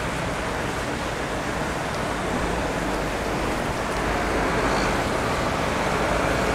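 Steady city street traffic noise, an even hiss of passing vehicles, swelling slightly about four seconds in.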